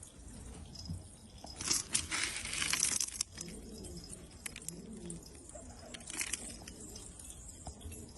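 Pigeons cooing in low, wavering notes, with a loud rustling burst about a second and a half in that lasts about a second and a half, and a few scattered clicks.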